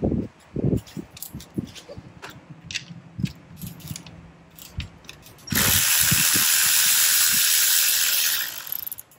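Light scattered clicks and knocks of tools and hands on the intake manifold, then a cordless electric ratchet runs steadily for about three seconds, backing out an intake manifold screw, and winds down near the end.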